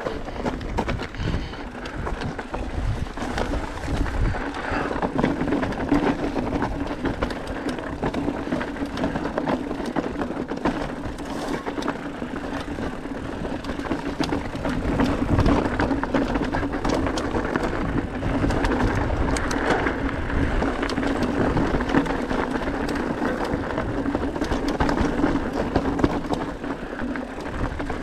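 Enduro mountain bike riding down a rough, stony dirt trail: tyres rolling and crunching over rocks, with a constant rattle of small knocks from the bike and a steady hum underneath.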